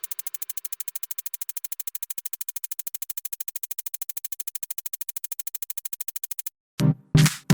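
Electronic background music: a quiet, rapidly pulsing synthesizer pattern of about a dozen beats a second, which stops shortly before louder, chopped synth chords start near the end.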